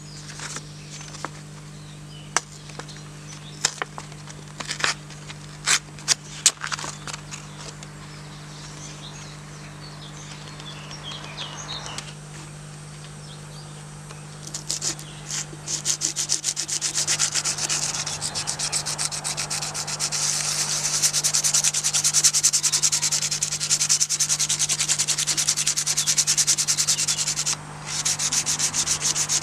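Hand sanding paint off the steel head of a Cold Steel Trail Hawk tomahawk with folded P120 sandpaper. Scattered clicks and rustles come first. About halfway through, fast back-and-forth rasping strokes begin and keep going, with one brief pause near the end.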